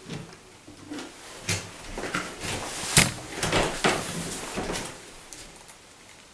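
Scattered clicks and knocks of small tools and metal parts being handled against a door while a door handle is refitted, with one sharp click about three seconds in.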